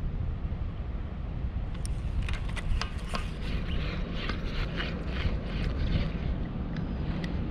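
Wind rumbling on the microphone. From about two seconds in until near the end, a Shimano Stradic SW 5000XG spinning reel is cranked for a jig retrieve, giving a quick run of clicks and ticks from the reel and line.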